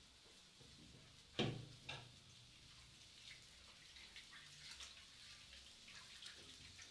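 Quiet stovetop with two sharp knocks close together about a second and a half in. Faint scattered ticks and pops follow from pancake batter frying in a pan.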